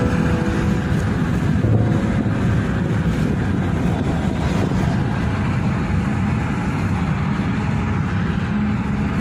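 Steady road noise of a car travelling at highway speed, heard from inside the car: an even, low rumble of tyres and wind.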